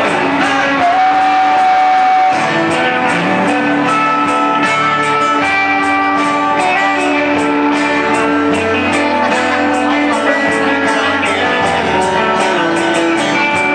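Acoustic rock band playing live: a held sung note ends about two seconds in, then acoustic guitars strum on at a steady beat.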